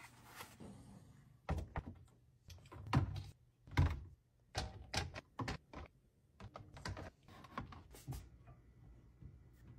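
Plastic cleaning bottles and containers being set down and shuffled into a clear plastic storage bin: an irregular string of hollow knocks and taps, the loudest pair about three to four seconds in.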